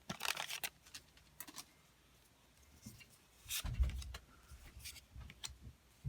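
Quiet handling of foil trading-card booster packs and cards: scattered faint crinkles and clicks, with a low thump a little past halfway.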